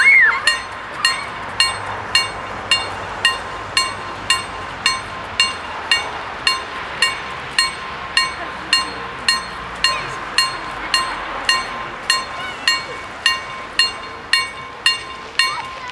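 Level crossing warning bell striking steadily, a little under twice a second, each stroke ringing on: the crossing signalling an approaching train as its barriers lower.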